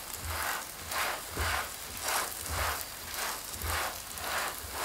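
Flatbread sizzling in oil in a frying pan while a silicone spatula pushes its edge round, the sizzle swelling with a soft scrape about every half second.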